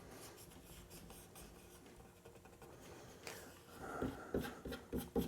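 Faint scratching and rubbing of hands working a vinyl sheet, with a few louder rustles and taps in the last two seconds.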